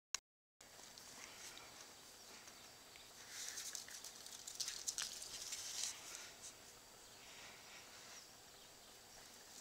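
Faint scuffling of two bull terriers, an adult and a puppy, moving about on a tiled floor, with a few sharp clicks. The scuffling is busiest from about three to six seconds in.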